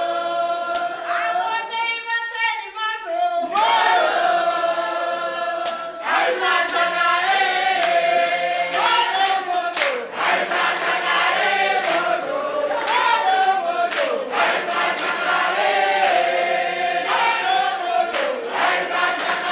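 A group of people singing together unaccompanied, with handclaps keeping time.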